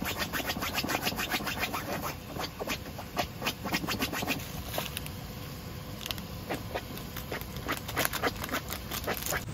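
Instant jjajang (black-bean) noodles boiling in a shallow pan of water and sauce, with a fast, steady crackle of popping bubbles as the liquid is boiled down.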